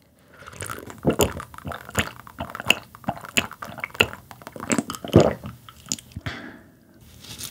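Close-miked gulping of a drink from a glass mug: repeated swallows about every two-thirds of a second, each with wet mouth and throat clicks, stopping about six seconds in.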